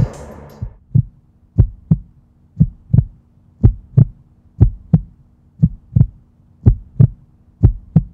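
Heartbeat sound effect: paired low thumps, lub-dub, about once a second, over a faint steady hum. The tail of the music fades out just as it begins.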